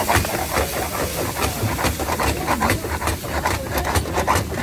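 Vegetable, cheese and cream filling sizzling in a large steel pan on a gas burner, with a steady hiss and repeated scraping strokes as a spatula stirs it against the pan. A low rumble runs underneath.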